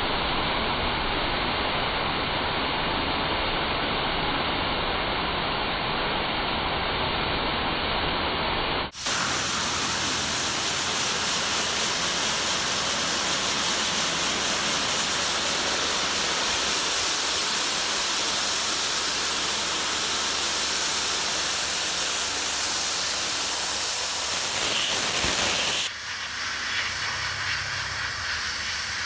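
Pressure washer wand spraying a high-pressure water jet, a steady loud hiss, blasting grease out of a metal mesh stove hood filter. The hiss is muffled for the first nine seconds, turns abruptly brighter, and changes again near the end.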